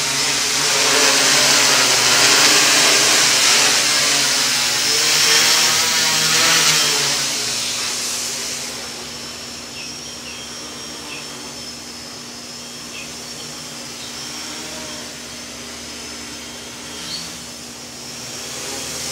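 Quadcopter's four brushless outrunner motors and 10-inch propellers buzzing in flight. The sound is loud and close for the first several seconds, fainter from about eight seconds in as the craft flies off, then louder again near the end as it comes back.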